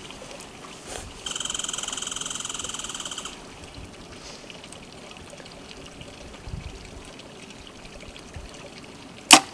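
A compound bow shot from full draw: one sharp snap of the string near the end. About a second in, a high, finely pulsing buzzing trill runs for about two seconds.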